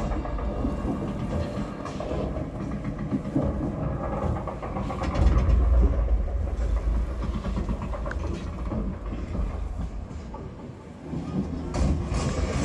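Train running: a low rumble with wheels clattering over rail joints, swelling and easing, loudest about halfway through and dipping shortly before the end.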